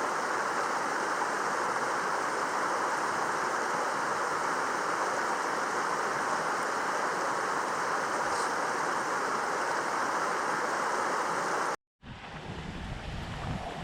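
Mountain stream water rushing steadily. It cuts off abruptly about twelve seconds in, giving way to a quieter low rumble of wind on the microphone.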